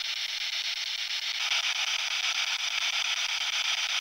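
Radio static hissing steadily through a small speaker, growing a little louder about one and a half seconds in.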